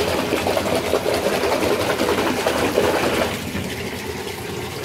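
Bathwater sloshing and splashing as a hand swishes it back and forth in a tub to whip up bubble bath foam. The splashing eases off a little past three seconds in.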